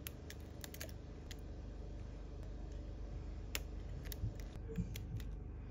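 A few faint, scattered clicks of a plastic spudger prying press-fit flex-cable connectors off an iPhone XS Max logic board.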